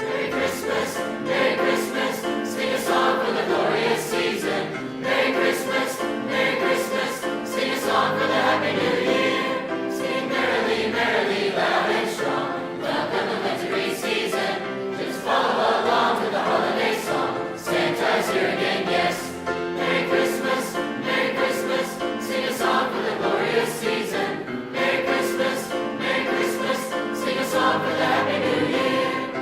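Mixed high school choir singing a Christmas song, many voices together with accompaniment.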